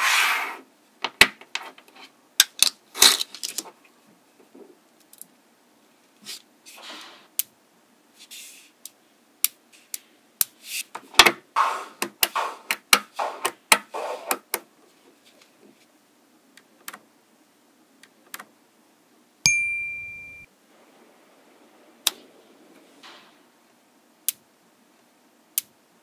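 Small metal magnetic balls clicking and rattling as they are snapped together by hand, in irregular clusters of sharp clicks with quiet gaps between. About two-thirds of the way through there is a single ringing ding.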